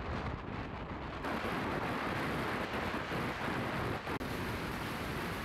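Wind rushing over the microphone while riding, mixed with road noise; it gets brighter and fuller suddenly about a second in and drops out for an instant about four seconds in.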